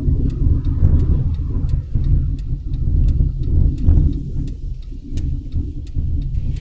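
Car engine and road noise while driving, a low rumble heard from inside the cabin.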